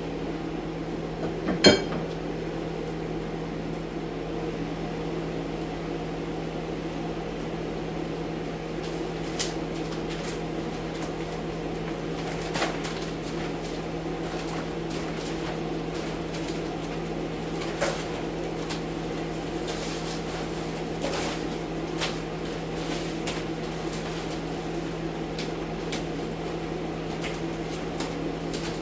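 Steady hum of an air scrubber running in the next room. Scattered rustles and snaps come from plastic sheeting being pulled off a cinderblock wall, the loudest a sharp snap about two seconds in.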